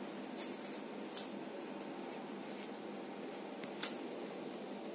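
Steady room hum with a few sharp little clicks and rustles from gloved hands handling a dog's foreleg; the loudest click comes about four seconds in.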